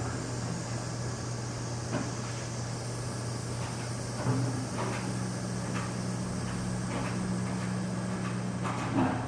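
Steady mechanical hum and hiss, like a ventilation fan, with a few faint light knocks scattered through it.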